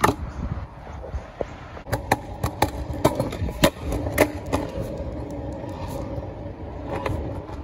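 Stunt scooter rolling over concrete and asphalt: a steady wheel rumble with a low hum, broken by sharp clacks, most of them between about two and five seconds in.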